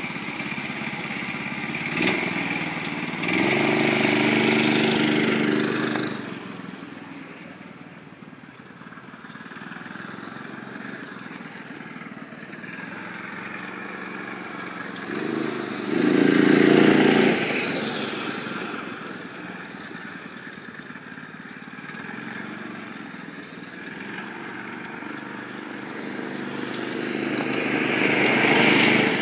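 Ungoverned 6.5 hp Predator single-cylinder four-stroke engine on a homemade scooter running under throttle, loud twice and fading away between, then swelling again near the end.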